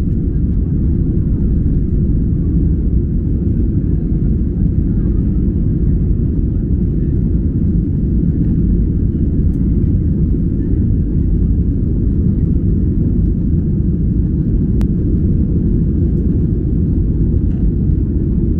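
Boeing 737-800's CFM56-7B engines at takeoff thrust, heard inside the cabin during lift-off and initial climb: a steady, low, unbroken noise.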